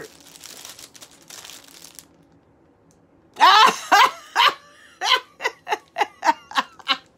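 A woman laughing. It starts about halfway through with a loud burst, then carries on as a run of short ha-ha pulses, two or three a second.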